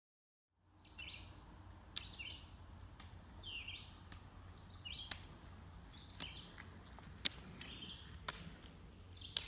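Roller ski pole tips clicking on asphalt about once a second in a double-pole rhythm, over a low steady rumble of outdoor noise. Short descending chirps also recur about once a second. The sound starts after a moment of silence.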